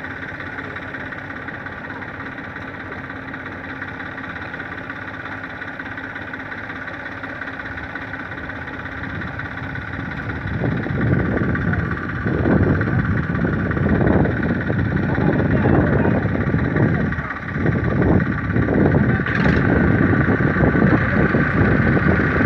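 Tafe 45DI tractor's diesel engine idling steadily, then from about halfway through revved hard in repeated surges with brief easings, as the tractor bogged in deep mud is driven to work its way out.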